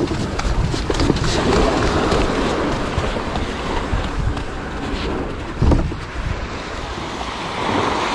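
Small surf washing up onto a sandy beach, with wind buffeting the microphone. A dull thump stands out about five and a half seconds in.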